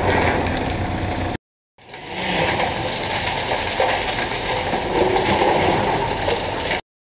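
Long-reach demolition excavator at work on a concrete building: diesel engine running under load, mixed with the crunch and rumble of masonry and rubble breaking and falling. The sound cuts out to silence briefly about a second and a half in, then cuts off abruptly just before the end.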